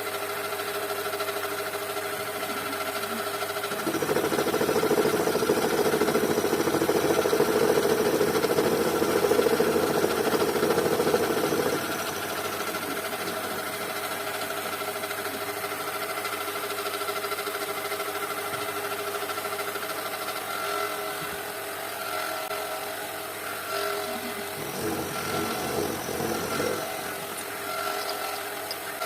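Small electric motor of a workshop power tool running steadily. It gets louder for about eight seconds from about four seconds in, then settles back.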